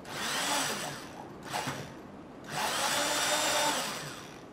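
Waring hand-held stick blender whizzing tomato sauce in a stainless steel saucepan, run in two short pulses: a brief one at the start and a longer one about halfway through, the motor whining up to speed and winding down each time. Pulsing keeps the sauce a little chunky.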